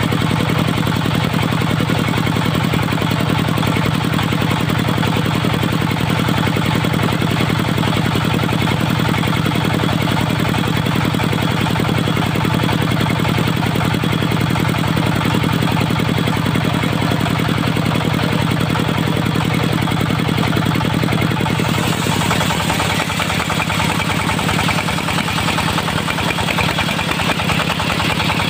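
Engine of a portable circular sawmill running steadily. About 22 seconds in its note drops and a higher hiss comes up.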